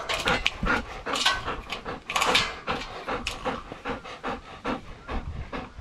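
Golden retriever panting close up, a quick run of rhythmic breaths.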